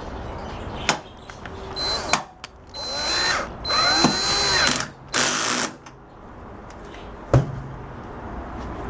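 Electric screwdriver or drill-driver running in four short bursts as it drives a screw into the microwave oven's cover, its motor pitch bending as it speeds up and slows. A sharp click sounds about a second in and another near the end.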